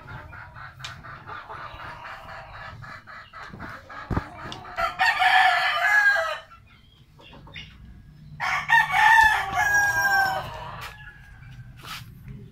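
Rooster clucking in quick short notes, then two loud cock-a-doodle-doo crows, about five seconds in and again about eight and a half seconds in.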